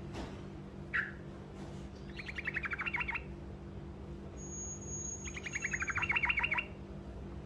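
Trucukan (yellow-vented bulbul) singing its short rolling trill twice, fast strings of about ten bright notes a second, after a single short call note.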